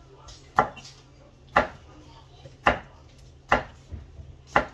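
Small knife slicing through a tomato on a thick wooden chopping block, the blade knocking on the board five times, about once a second.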